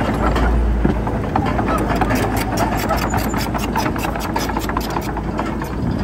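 Heavy diesel engine of earthmoving machinery running steadily, with a rapid run of sharp metallic clicking through the middle.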